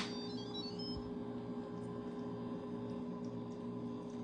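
Instant Pot lid clicking once as it is turned open, then a steady low hum.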